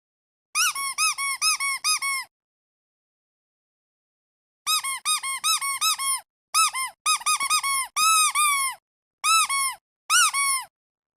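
Squeaky dog toy squeezed over and over, giving quick runs of short squeaks, each one rising and falling in pitch. There are several runs, with dead silence between them: about seven squeaks near the start, then a longer stretch of squeezing after a pause of a couple of seconds.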